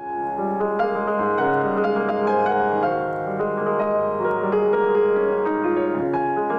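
Grand piano playing a slow classical passage, chords and melody notes ringing on over one another.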